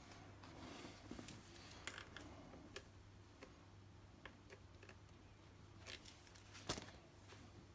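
Faint, scattered clicks and light clatter of pliers and small parts being handled on an RC truck's chassis, with one sharper click near the end.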